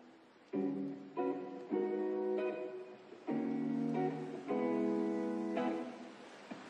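Background music: acoustic guitar strummed and plucked chords, each chord ringing and then dying away.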